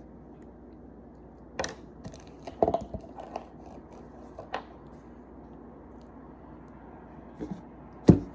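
Scattered bumps and clicks of a camera being handled and turned, a handful of short knocks with the loudest one near the end.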